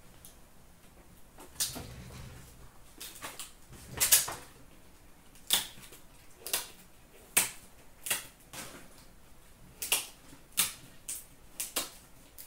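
Trading cards, hard plastic card cases and card boxes being handled and set down: a string of sharp clicks and taps, irregular at about one a second, the loudest about four seconds in.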